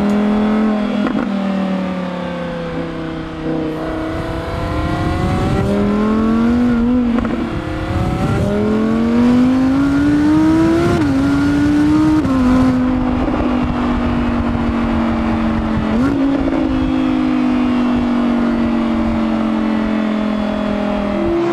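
Audi R8 V10 GT's 5.2-litre naturally aspirated V10 engine driven on a track. The revs climb and fall, with quick jumps in pitch at the gear changes, and the engine note drops slowly through the second half as the car eases off.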